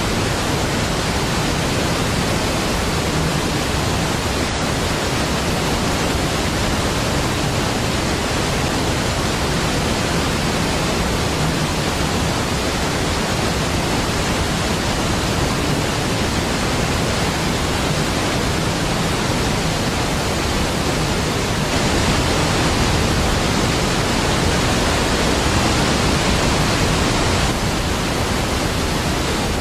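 Niagara Falls, a large waterfall: a steady, dense rush of falling water spread from deep to high pitches, swelling slightly louder for a few seconds in the second half.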